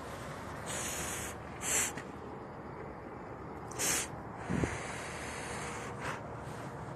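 A man breathing in and blowing out smoke from a blunt: a series of breathy hisses, with two short sharp ones about two and four seconds in, and a low bump of the phone about halfway.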